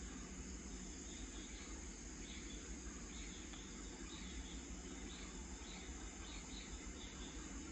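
Faint evening insects chirping: a steady high trill with short chirps repeating over it from about a second and a half in. A faint low rumble runs underneath.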